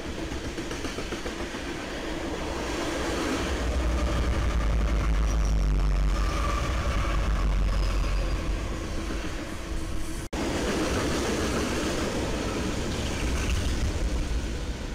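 Freight train passing: railcars rolling over the rails, then a diesel locomotive's engine rumbling deep and loud as it goes by. After a brief break about ten seconds in, a BNSF diesel locomotive approaches with its engine running and wheels on the rails.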